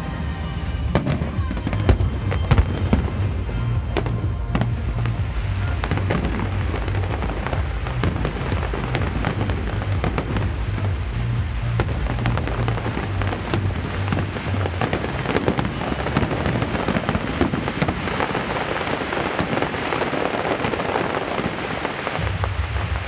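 Aerial fireworks display: many sharp bangs of shells bursting, over a continuous crackle that grows dense in the last several seconds as crackling stars fill the sky.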